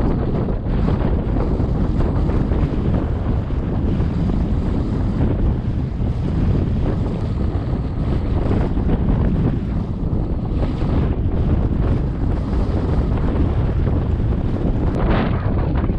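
Wind buffeting the microphone in a steady loud rush, over water splashing and lapping around a kayak on open sea, with a brighter splash near the end.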